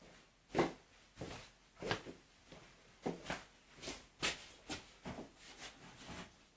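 A series of light knocks and taps at an irregular pace, roughly two a second, like handling or movement in a small room.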